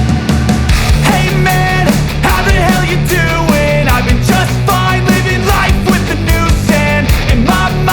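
Loud rock music with a driving drum beat, distorted guitar and bass, and a melody line on top.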